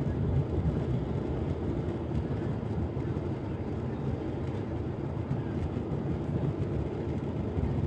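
Cabin noise inside a Ryanair Boeing 737 climbing just after takeoff: a steady, low rumble of the jet engines at climb power, with rushing airflow.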